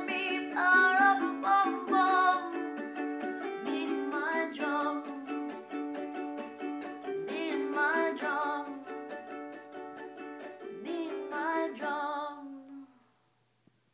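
A woman singing with a strummed ukulele. The song ends about a second before the close.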